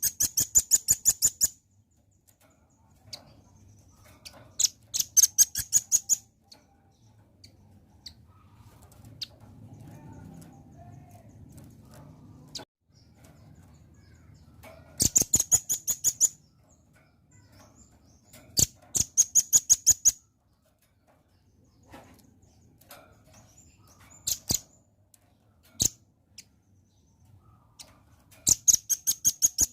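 Velvet-fronted nuthatch calling: rapid trills of sharp, high chit notes, about ten a second and each run lasting a second or so, repeated five times with single notes between.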